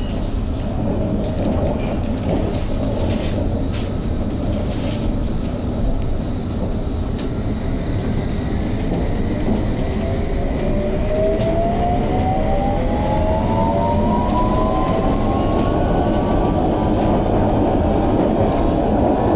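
London Underground Hammersmith & City line train running, heard from inside: a steady rumble with scattered clicks from the wheels on the rails, then from about halfway a whine of several tones rising together in pitch as the traction motors pull the train up to speed.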